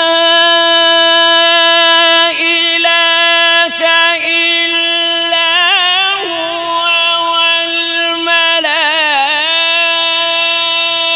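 Quran recitation by a male qari in melodic tajweed style: one long held note, the vowel drawn out at a steady pitch, with quick wavering ornaments about halfway through and again near the end, amplified through a microphone.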